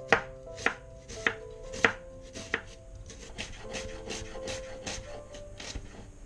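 Chef's knife slicing an onion into thin julienne strips on a wooden cutting board: the blade knocks on the board about every half second at first, then quicker and lighter from about halfway.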